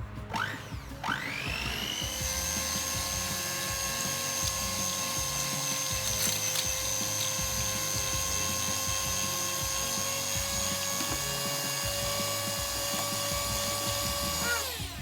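Electric mixer motor spinning up with a rising whine, running at a steady speed for about twelve seconds, then switched off and winding down near the end.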